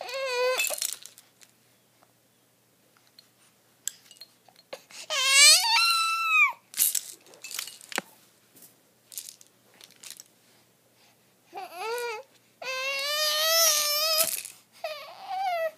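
Baby fussing: about five short, whiny cries that rise and fall in pitch, one near the start, one in the middle and three close together near the end, with soft knocks and rustling between them.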